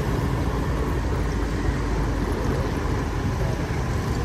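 Steady low rumble of wind on the microphone and road noise from riding a moving vehicle along the street.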